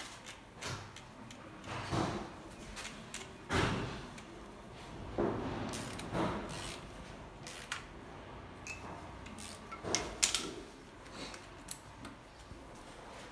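Irregular clicks, knocks and scrapes of hand tools and metal parts on a diesel engine's cylinder head while the compression tester is moved on to the next cylinder.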